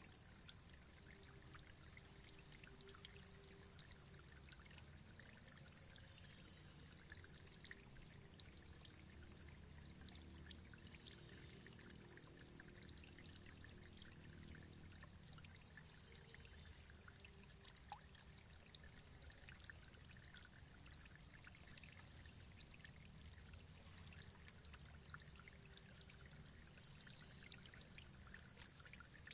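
Faint running water flowing and trickling steadily, with many small splashy ticks.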